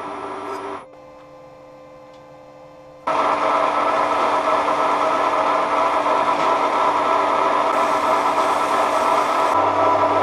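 Metal lathe running steadily with the spindle turning a flywheel blank. It drops abruptly to a quieter hum just under a second in, then comes back at full loudness about three seconds in and stays steady.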